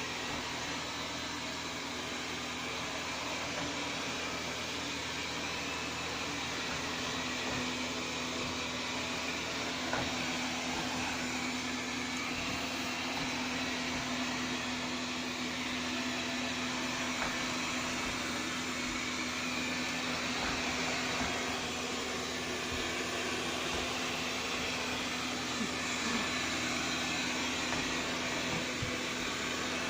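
Xiaomi Mi Robot Vacuum-Mop P running, its motor and suction giving a steady hum with one constant tone.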